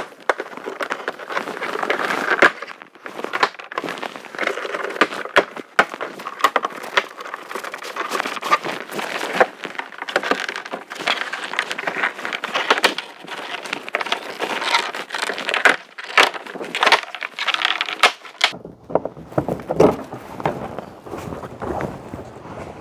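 Plastic interior trim of a car's rear door being pried off with a trim tool: a run of clicks and crackling of plastic and clips being worked loose, with handling rustle.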